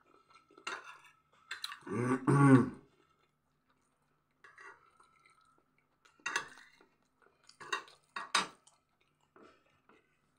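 A metal spoon clinking and scraping on a plate in a few short bursts, with chewing between. About two seconds in comes the loudest sound, a short throaty sound from the eater's throat.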